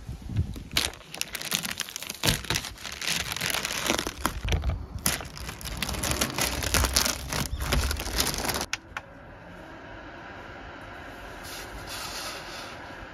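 Newspaper masking and masking tape being peeled off a painted window frame: dense paper crinkling and tearing with sharp snaps, stopping suddenly about nine seconds in. After that only a steady, quieter hiss is left.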